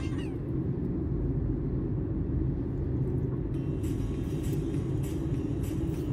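Steady engine and road rumble heard inside the cabin of a Honda Brio cruising along at an even speed.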